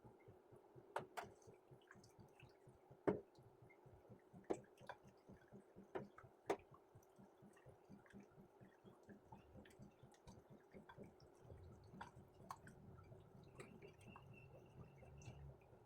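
Near silence: a low steady hum with scattered sharp clicks and light taps, the loudest about three seconds in, and a faint high tone near the end.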